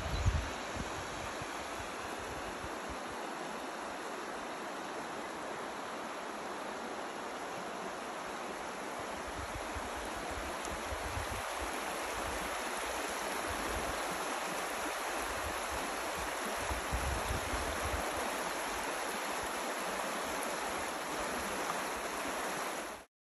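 Shallow river water rushing and babbling over a stony riffle, steady throughout and growing a little louder after the middle. There is a brief low bump near the start, and the sound cuts off suddenly near the end.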